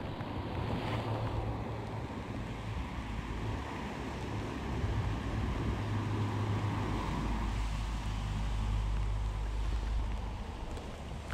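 Wind buffeting the microphone in a low, steady rumble that grows heavier for a few seconds near the end, over the constant rush of river water.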